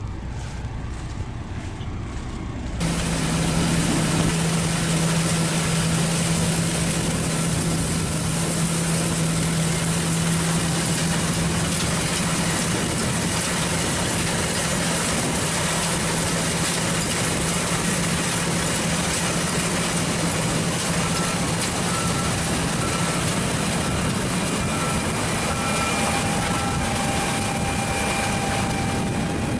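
John Deere T670i combine harvester running steadily with a strong low hum, suddenly louder about three seconds in. A run of short electronic beeps sounds about two-thirds of the way through.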